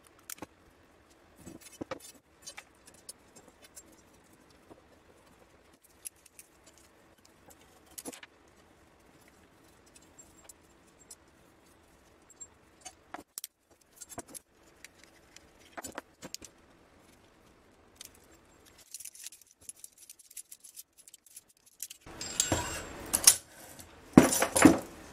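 Steel tool parts clinking and knocking as they are handled and fitted together: a threaded rod, a sledge-hammer head and locking pliers. Scattered light clicks, with louder clattering in the last few seconds.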